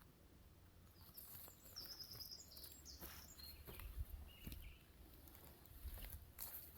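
Faint birdsong: short, high chirping phrases repeated several times, over scattered small clicks and rustles and a low rumble.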